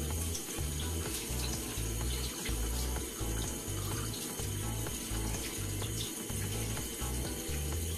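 Tap running steadily into a sink.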